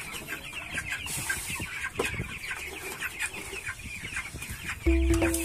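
A flock of three-week-old broiler chicks peeping, many short calls overlapping without a break. Background music comes in near the end.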